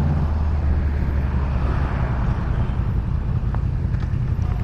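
Riding noise from a Honda CBR600F under way: the low, steady hum of its inline-four engine under wind rushing over the microphone.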